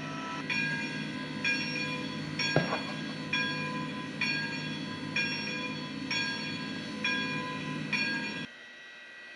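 Model steam locomotive's WOW Sound decoder playing a locomotive bell, ringing about once a second over a steady low engine hum, then cutting off suddenly near the end.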